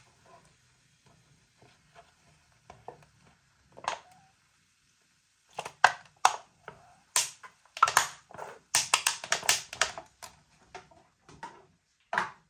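An aluminium can of sparkling hop water being squeezed to pour it into a glass: irregular crackles and sharp clicks, sparse at first and densest in the middle.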